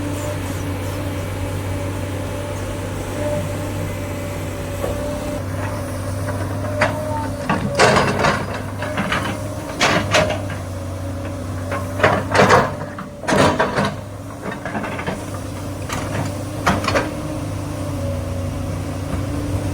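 SANY excavator's diesel engine running at a steady, even pitch. A cluster of loud, short, sharp noises from the working machine comes in about a third of the way through and lasts for several seconds.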